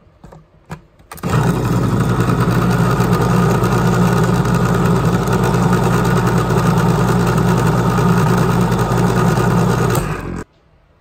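Sunbeam electric can opener: a few clicks, then its motor runs with a loud, steady hum for about nine seconds as it cuts around a can lid, stopping about ten seconds in.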